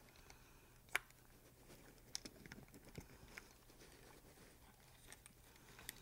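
Faint, scattered clicks and taps of hard plastic as a Cadillac STS shift-lever assembly is handled and its switch cover worked loose, with one sharper click about a second in.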